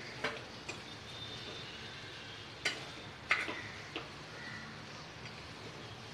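A spoon stirring poha (flattened rice) in a pan, knocking against the pan's side about five times, loudest in a cluster around the middle.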